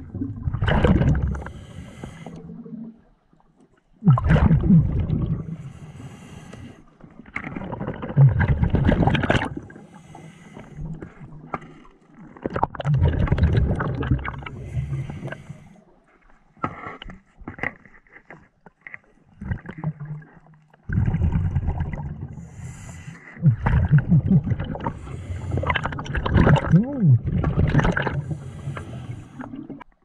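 A scuba diver breathing through a regulator underwater: loud bursts of exhaled bubbles every few seconds, each paired with a hissing breath in.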